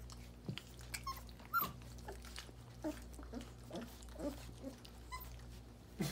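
Young puppies giving short, squeaky whimpers and grunts, a dozen or so in quick succession, with a few higher squeaks near the start and some soft clicks.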